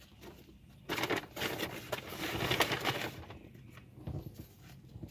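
Crinkly, crackly noise of takeout food being handled and eaten: a burst starting about a second in and lasting about two seconds, then quieter small handling noises.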